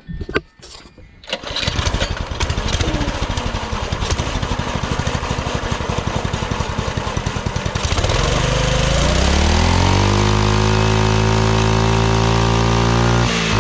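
Hisun 196cc single-cylinder four-stroke engine on a mini bike catching after a few knocks about a second and a half in, then idling with an uneven chugging beat. About eight seconds in it revs up smoothly and holds a high, steady speed.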